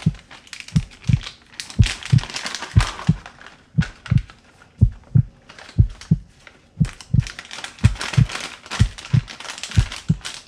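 A heartbeat sound effect, a low double thump (lub-dub) about once a second, with the crinkling of a foil spice packet being handled and opened over it in two stretches.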